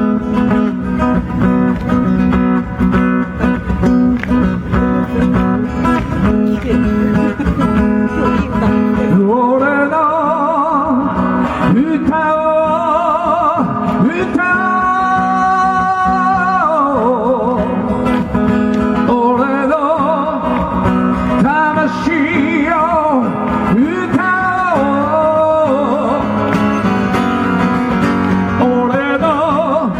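Live song: acoustic guitar strumming an intro, then a man starts singing over it about nine seconds in.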